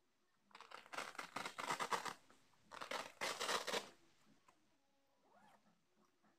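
Plastic packaging wrap being pulled off and crinkled in two rapid, scratchy bursts of a second or so each, the second starting about two and a half seconds in.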